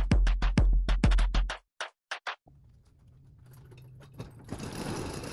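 Electronic music with a drum-machine beat and heavy bass, cut off about a second and a half in. After a few clicks, a corrugated steel roll-up garage door is raised, its rattle growing and loudest over the last second or so.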